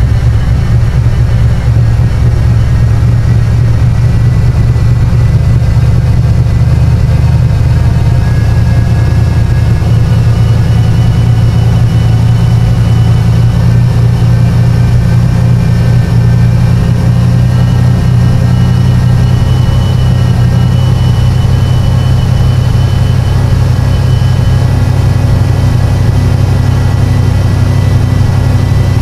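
1984 Camaro Z28's 5.0-litre HO small-block V8 running steadily at idle, heard from the open engine bay; the idle note shifts slightly lower about two-thirds of the way through.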